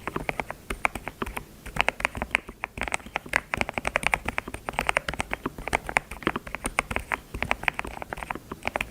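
Typing on a computer keyboard: quick runs of key clicks, several a second, broken by short pauses.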